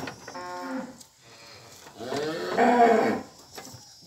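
Cow mooing twice: a short call at the start, then a longer, louder moo that rises and falls about two seconds in.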